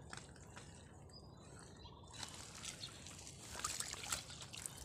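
Faint water trickling and dripping, with small splashes and crackling ticks that grow busier after about two seconds.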